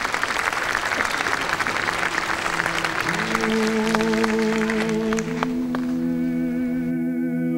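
Audience applause that dies away over the first few seconds, as music of long held notes sounding together in a low chord comes in about three seconds in and carries on steadily.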